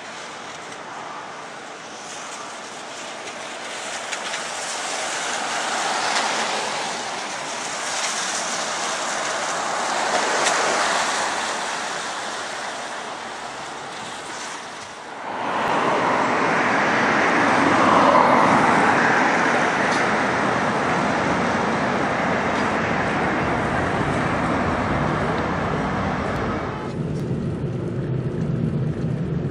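Traffic on a rain-wet street: tyres hiss on the wet road as vehicles pass, swelling several times. About halfway it jumps to a louder, steady wet-road tyre noise. Near the end it changes to a low, steady rumble of driving, heard from inside a car.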